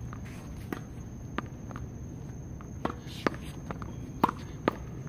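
Tennis ball hit with a racket against a practice wall: a string of sharp knocks from racket strikes, wall hits and bounces on the hard court, the loudest a little past three seconds and just past four seconds in, with footsteps moving about the court.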